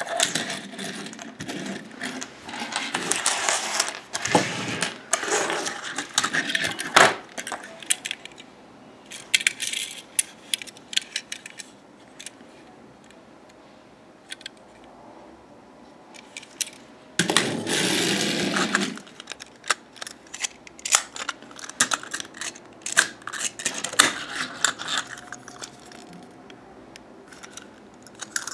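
Plastic toy pieces being handled: irregular clicks, clacks and light rattles, with a longer scraping rustle about 17 seconds in.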